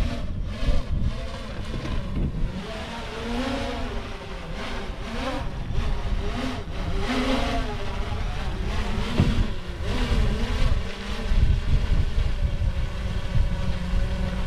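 Wind buffeting the microphone in a heavy, uneven rumble, with faint voices. A steady low hum comes in about eleven seconds in.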